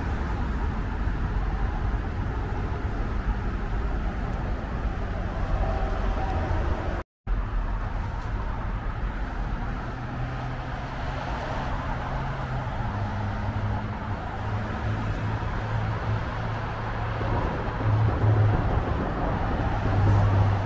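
Steady road traffic noise from cars on the overpass road and the multi-lane highway below, a low rumble, with a brief break in the sound about seven seconds in.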